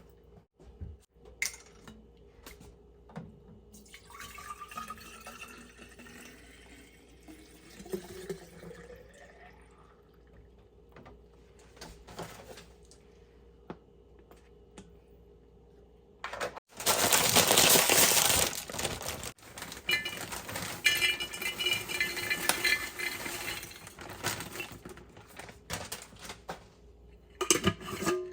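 Water running from a tap into a sink or container in short spells, loudest for a couple of seconds past the middle, with scattered knocks and clinks.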